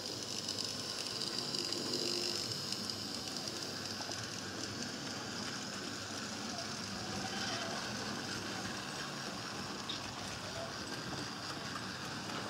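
HO-scale model trains running on the layout: metal wheels rattling and clicking along the rails under a steady high whine.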